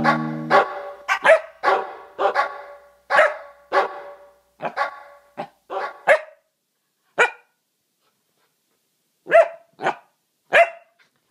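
Corgi puppy barking in short, sharp, high barks, about twenty in quick runs, then a pause of about two seconds and three more barks near the end.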